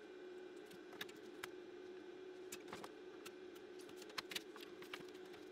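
Scattered light clicks and taps as small electronic parts and tools are handled on a wooden workbench, over a faint steady hum.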